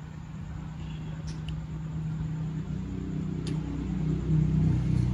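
A low engine hum growing steadily louder over a few seconds, with a few faint clicks.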